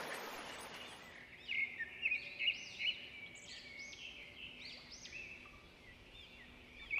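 Birds chirping: a run of short, quick, arched calls repeated over and over, starting about a second and a half in and loudest just after they begin.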